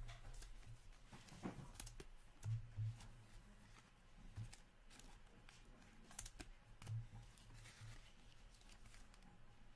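Faint handling of trading cards and a foil card pack on a table: scattered light clicks and rustles, with a few soft low thumps.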